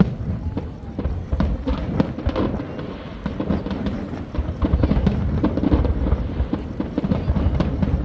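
Aerial fireworks bursting in quick succession: a continuous string of sharp bangs and crackles over a deep rumble.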